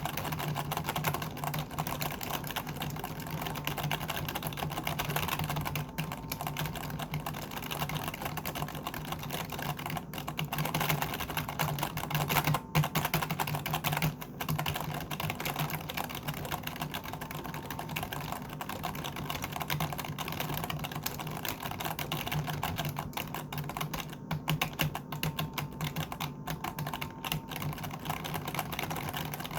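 Computer keyboard being typed on quickly and continuously: dense, rapid key clicks with a few brief pauses, over a steady low hum.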